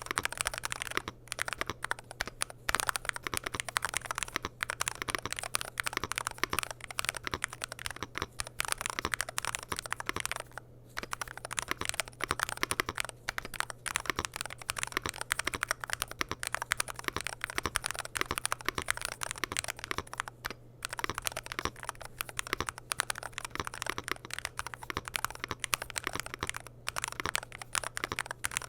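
Continuous fast typing on a Womier SK75 TMR mechanical keyboard with Outemu magnetic (TMR) switches, PBT Cherry-profile keycaps, an FR4 plate and an aluminium case, giving a dense run of crisp key clacks with short pauses, such as one about ten seconds in and one about twenty seconds in. A faint steady hum sits underneath.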